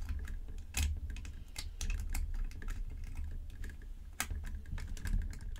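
Irregular small plastic clicks and taps from handling a Hot Toys Iron Man Mark 46 sixth-scale figure, as fingers fit a removable leg armor panel back in place, over a low handling rumble. A couple of sharper clicks stand out, about a second in and near the four-second mark.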